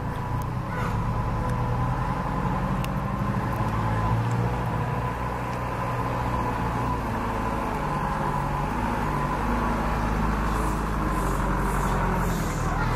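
An engine running steadily: a low hum with a faint steady whine above it.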